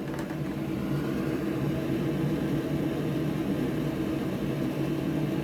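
Steady mechanical hum and whir of a running fan, unchanging throughout.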